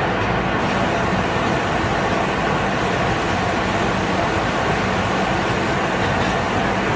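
Steady industrial machinery noise: an even whir with a low hum underneath, unchanging throughout.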